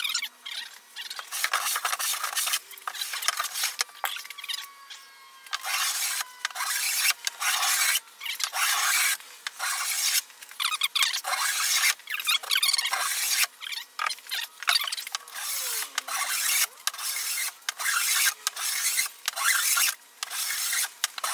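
Hand plane set to a coarse cut, stroked again and again along the edge of a mahogany plank and shaving wood off. The scraping strokes come about once a second, each under a second long, with short pauses between.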